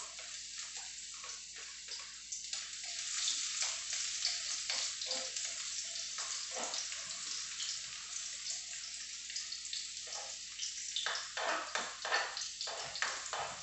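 Minced garlic sizzling in a little oil in a hot wok, a steady hiss with light crackling, stirred with a spatula that scrapes and taps against the wok, more often near the end.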